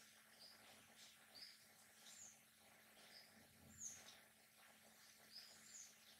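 Near silence: faint room tone with a steady low hum and faint, short, high chirps about once a second, the clearest about two-thirds of the way in.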